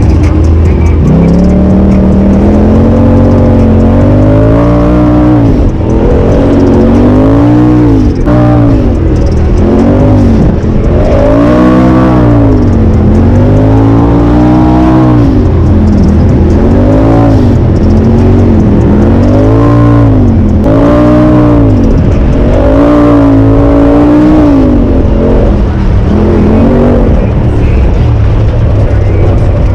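Turbocharged Polaris RZR side-by-side engine revving up and down over and over, its pitch rising and falling every second or two over a steady low hum.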